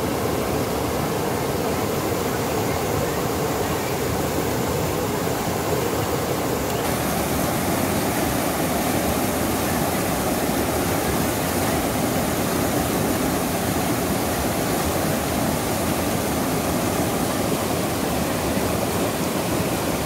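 Waterfall rushing steadily as white water pours over and around boulders in a rocky cascade, with a slightly brighter hiss from about seven seconds in.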